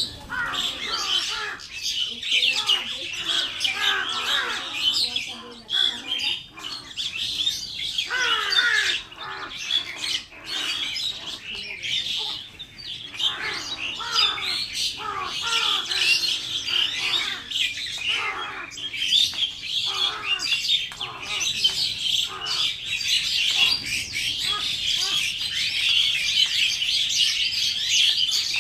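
Many small birds chirping at once, a dense, continuous overlapping chatter of short high calls.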